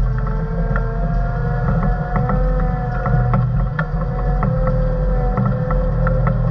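Motor grader's diesel engine running under load, heard from inside the cab, with a steady whine over the engine and scattered clicks and rattles.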